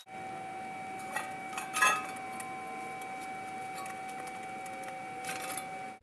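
Steel tubing and propane-tank parts being handled on concrete: light metallic clinks and a sharper clank about two seconds in, over a steady high ringing tone.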